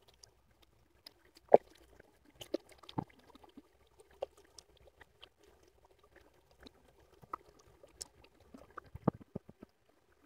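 Shallow stream trickling over stones, faint, with scattered small splashes and clicks; the loudest comes about a second and a half in.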